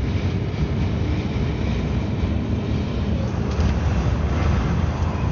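Storm-force wind buffeting a vehicle, heard from inside as a steady low rumble mixed with the vehicle's own running noise.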